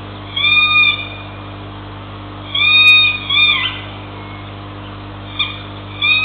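An animal's high-pitched calls, each a short rising-then-falling cry, heard once, then twice in quick succession, then again near the end, over a steady low hum.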